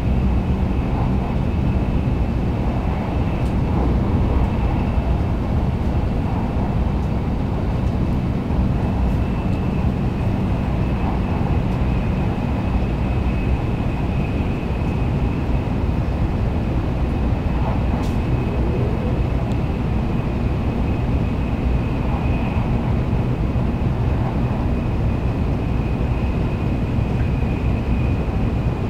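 Steady running noise of a Kyushu Shinkansen train heard from inside the passenger car while travelling at speed: a constant low rumble, with a faint steady high tone above it.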